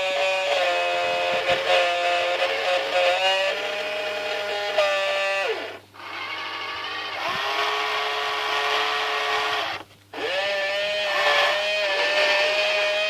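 Small electric motors of a radio-controlled model cable excavator whining, their pitch stepping up and down with load. The whine winds down to a stop twice, about six and ten seconds in, and spins back up each time.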